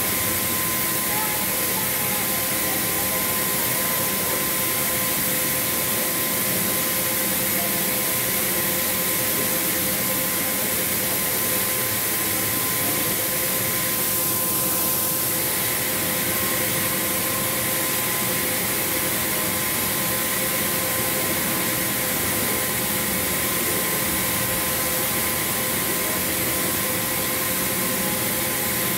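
Steady mechanical hum and hiss with a few constant whining tones from the animatronic podracer-engine roaster display. The highest tone drops out briefly about halfway through.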